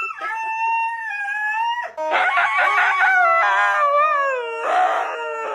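A dog howling in long, wavering notes. A held howl of about two seconds is followed by a rougher, throatier stretch and then a howl that slides down in pitch, with another rough yowl near the end.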